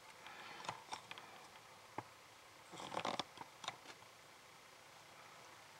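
Faint handling noises of a camera being re-aimed on its mount: a few small clicks in the first two seconds, then a short burst of clicks and rustling about three seconds in, after which it goes still.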